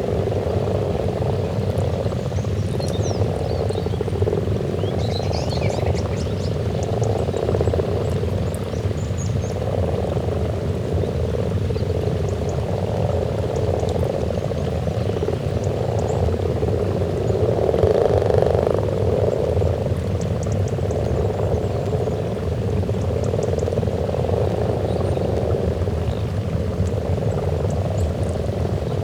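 Breeding chorus of common frogs at a spawning pond: many males croaking at once in a dense, low, purring churr that swells and fades every couple of seconds.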